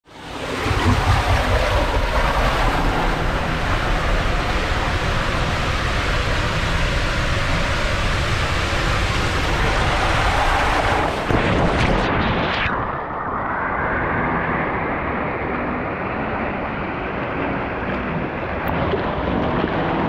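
Water rushing through an enclosed WhiteWater West drop-slide tube as a rider slides fast down it, a loud steady rush. About twelve seconds in the ride ends in a splash into the pool, and the sound turns muffled with the microphone under water.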